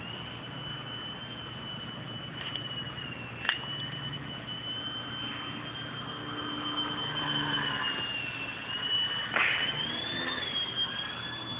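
Electric motor and 9x4.7 propeller of a Crack Yak foam aerobatic RC plane whining in flight, the high-pitched whine wavering with throttle and rising in pitch near the end. A sharp click about three and a half seconds in.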